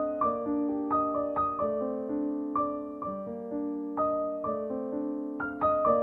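Gentle background piano music, notes and chords struck every half second or so and left to ring out.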